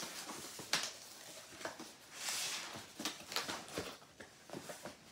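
Flaps of a large cardboard box being pulled open and folded back by hand: scattered light knocks and rustles of cardboard, with a longer scraping rustle about two seconds in.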